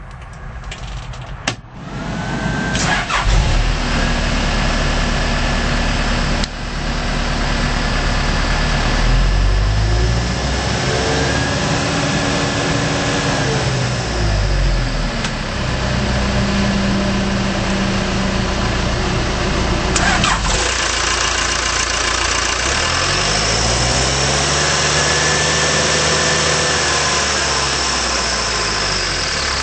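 Diesel engine of a 2007 Case 580M backhoe loader starting about two seconds in, then running, its engine speed rising and falling twice.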